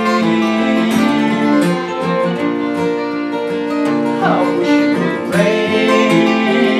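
Acoustic country music: two acoustic guitars strum under a bowed fiddle playing long, sustained notes, as an instrumental break with no words. About four seconds in there is a quick sliding note.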